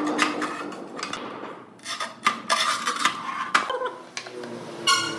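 Ceramic tiles clinking and scraping as they are handled and set down on a hard floor, a series of irregular sharp clicks, with a short ringing clink near the end.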